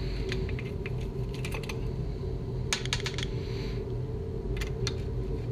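Light metallic clicks and taps of a hand nut driver working 7/16 nuts off a steering column's steel housing, with a sharper cluster of clicks about three seconds in as a loosened nut is set down or drops onto the steel bench. A steady low hum runs underneath.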